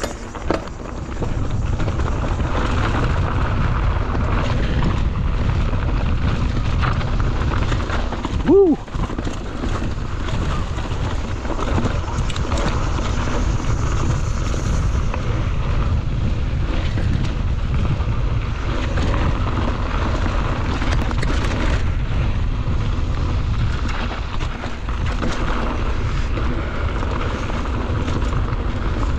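Wind buffeting a bike-mounted or body-worn action-camera microphone over the low rumble and rattle of a mountain bike rolling along a trail, steady once it picks up about a second in. One short pitched sound stands out about nine seconds in.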